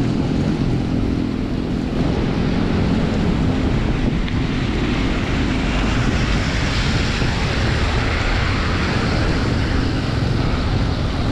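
Wind rushing over the microphone of a camera on a moving bicycle in heavy rain, a steady low rumble, with the hiss of tyres and rain on the wet road growing brighter after about four seconds.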